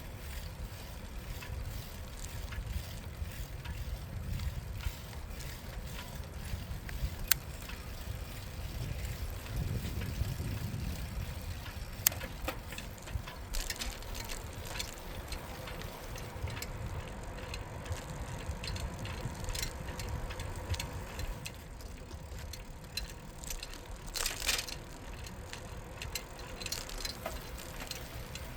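A bicycle in motion heard from the rider's position: steady rolling rumble with small rattles and ticks from the bike. Two sharp clicks stand out, about 7 and 12 seconds in.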